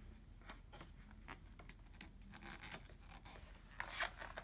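Pages of a picture book being turned by hand on a tabletop: faint paper rustles and light taps, with a louder swish of a page turning near the end.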